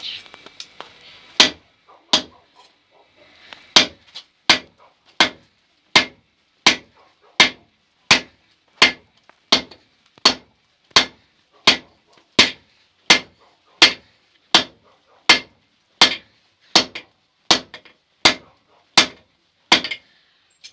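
Hammer blows on a steel anvil, each with a bright metallic ring: two blows, a short pause, then a steady run of blows about every 0.7 seconds.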